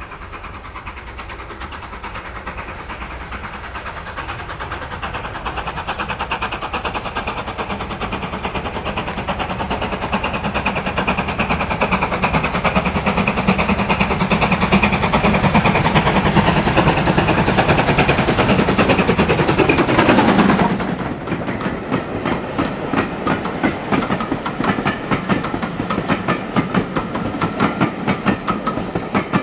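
Two-cylinder GWR Modified Hall 4-6-0 steam locomotive No. 6989 Wightwick Hall running towards the listener, its exhaust beats growing steadily louder, then falling in pitch and dropping away suddenly about two-thirds of the way in. After that comes the rhythmic clickety-clack of carriage wheels over rail joints as a train's coaches run past.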